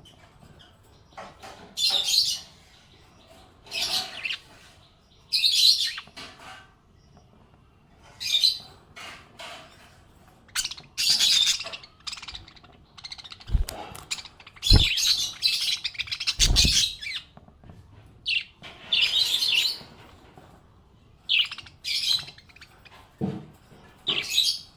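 Pet budgies chirping in short, repeated bursts every second or two, with a few low thumps around the middle.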